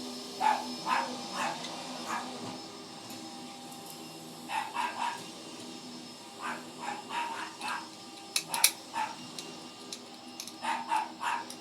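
A dog barking in short runs of two to four barks, on and off throughout, over a steady low hum. A couple of sharp clicks about eight seconds in are the loudest sounds.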